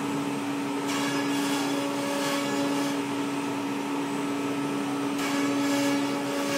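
Laguna Puma CNC router's spindle running with a steady hum while the bit cuts sheet stock for cabinet parts, under the dust hood's extraction. The cutting rises to a hiss about a second in for two seconds, and again near the end. Quiet for a machine of this kind.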